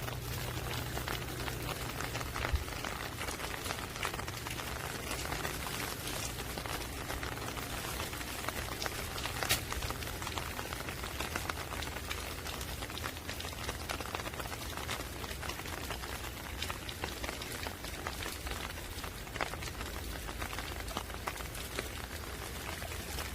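Steady rain falling: a dense, even patter of drops, with a few louder single drops striking close by, about two seconds in, near the middle and again toward the end.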